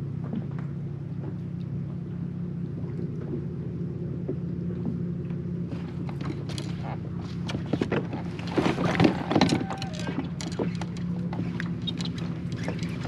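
Electric trolling motor of an Old Town Autopilot 136 kayak, a steady hum. About eight seconds in, a louder rustling, clicking stretch lasts a couple of seconds.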